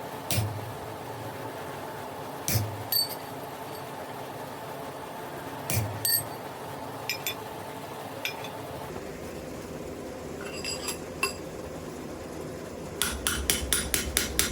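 Blacksmith's hammer striking wrought iron on an anvil, with bright metallic ringing: a few scattered blows, then a quick run of about five blows a second starting near the end. A steady hum runs underneath.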